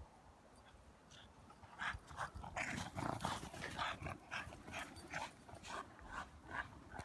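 Pocket pit bull dog making a quick series of short, breathy sounds while playing, roughly two a second, starting about two seconds in.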